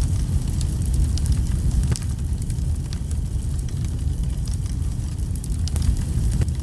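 Wood fire crackling: frequent small sharp pops and snaps from the burning logs over a steady low rumble.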